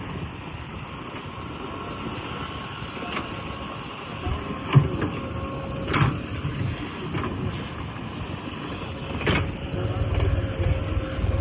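Heavy diesel machinery running with a low rumble that gets louder near the end, under a steady whine. Three sharp knocks or clanks come through, the loudest about five seconds in.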